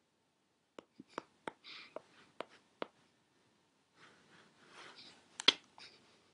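Handling noise: scattered light clicks and knocks with a short rustle, then soft rubbing and one sharper knock about five and a half seconds in, as the camera is picked up and moved about.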